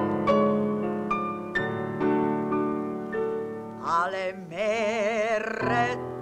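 A grand piano playing sustained chords, joined about four seconds in by a woman's voice singing operetta, holding a long note with a wide vibrato.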